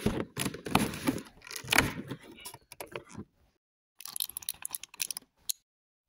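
Cardboard of an advent calendar door and a small cellophane bag crackling and rustling as the bagged toy is worked out of its compartment. After a short break, more crinkling of the bag, with a sharp tick near the end.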